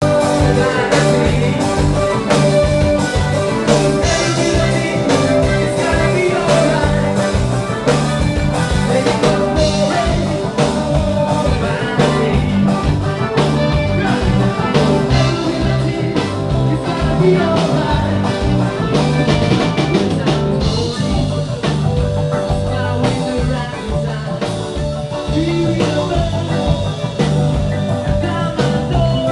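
Live band playing a reggae song, with a steady drum beat, a bass line, guitar and a singing voice.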